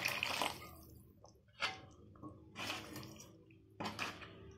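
Tamarind water poured into a pan of curry masala, the pour ending about half a second in; then a few short, soft sloshes as the curry is stirred with a spoon.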